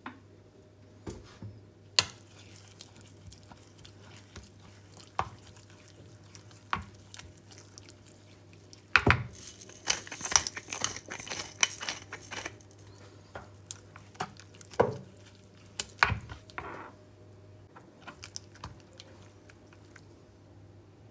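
Metal spoon clinking and scraping against a bowl of grated cucumber, with a pepper mill grinding for about three seconds in the middle.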